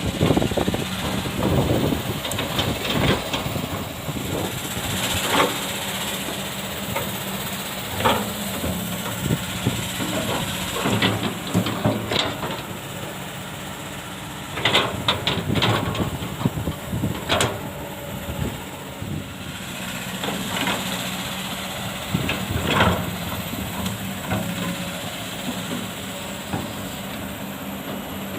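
Kobelco SK200 hydraulic excavator's diesel engine running steadily under work, with sudden clanks every few seconds as it digs fine sand.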